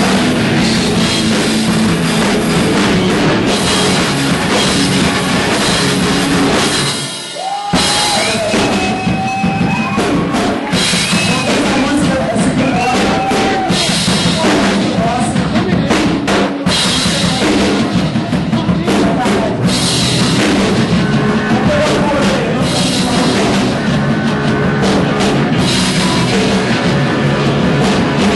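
Live rock band playing loud, with the drum kit's cymbals and bass drum to the fore. The band drops out for under a second about seven seconds in, then comes back in.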